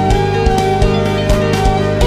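Background music with a steady beat, about two or three beats a second, under sustained pitched notes.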